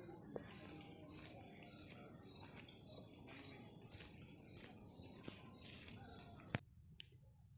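Faint, steady high-pitched chirring over low room noise, stopping abruptly at a click about six and a half seconds in.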